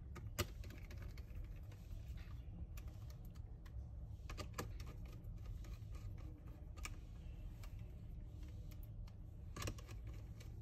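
Faint, scattered clicks of a small screwdriver tightening the hinge screws of a laptop, with a sharper click about half a second in and a short run of clicks near the end.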